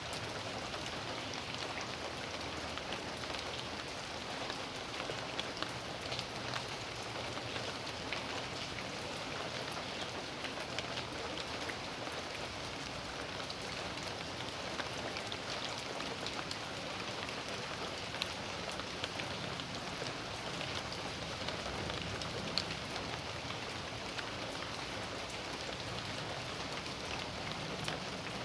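Steady rain falling on a backyard, a continuous hiss with many scattered drop ticks.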